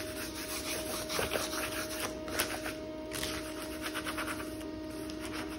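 Transfer tape being rubbed down over a vinyl stencil on a wooden spool top: quick, uneven scratchy strokes as it is burnished flat. A steady hum runs underneath.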